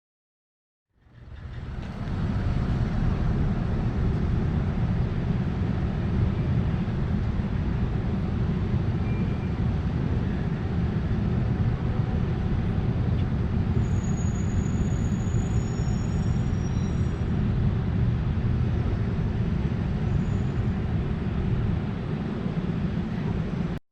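A steady low rumbling noise that fades in about a second in, holds evenly, and cuts off abruptly at the end, with a few faint high whistling tones about halfway through.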